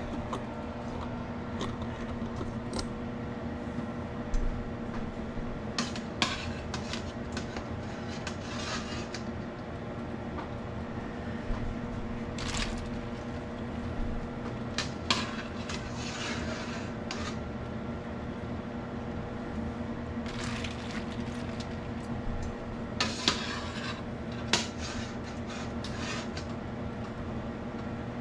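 Kitchen clatter of metal utensils, a mesh skimmer and a steel bowl of ice water: scattered clinks and knocks as blanched peaches are moved into the ice bath, over a steady low hum.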